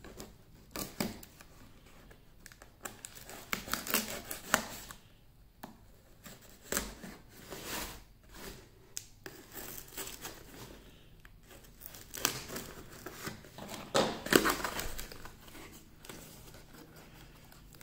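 Packing tape on a cardboard shipping box being slit with a folding pocket knife and torn, and the cardboard flaps scraping and rustling as the box is pulled open. The sounds come in irregular rasps, the loudest about two-thirds of the way through.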